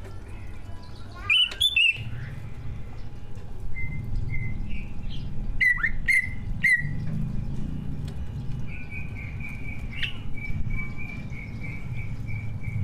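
Leafbird (cucak ijo) singing: a few short, sharp whistled notes, then near the end a quick run of repeated notes at about three a second. Under it runs a low steady background rumble.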